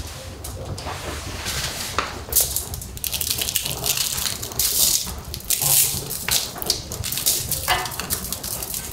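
Aluminium foil crinkling and rustling in short bursts as raw meat pieces are laid on it and handled, over a steady low rumble.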